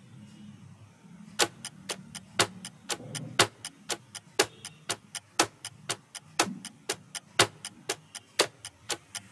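Clock-ticking sound effect of a quiz countdown timer: sharp ticks about twice a second, a louder tick each second with a softer one between, starting about a second and a half in.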